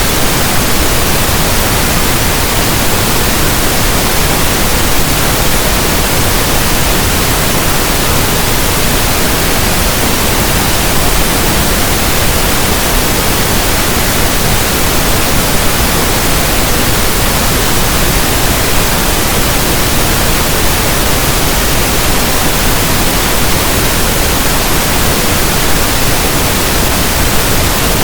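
Steady, even pink noise: a soft static hiss like a radio station not in tune.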